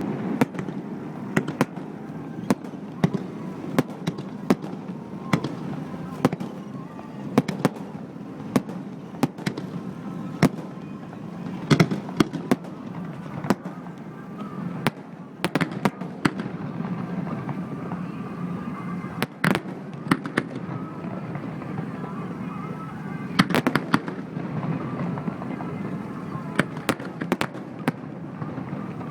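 Fireworks display at close range: a steady run of sharp bangs from aerial shells bursting, often more than one a second, with thicker clusters of bangs at times.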